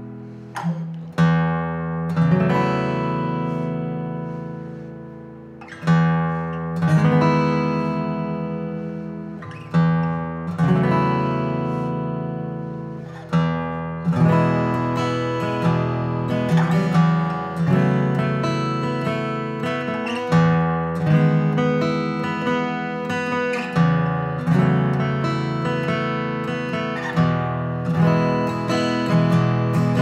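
Taylor 322ce 12-fret mahogany acoustic guitar being played: chords struck and left to ring, a few seconds apart, then a quicker, steady rhythm of picked and strummed chords from about halfway through.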